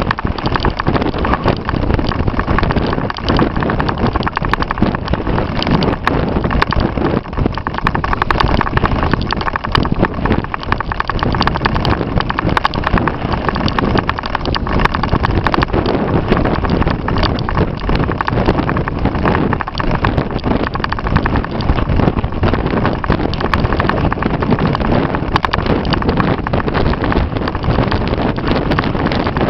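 Strong wind buffeting the microphone: a loud, continuous rumble and rustle full of rapid irregular thumps.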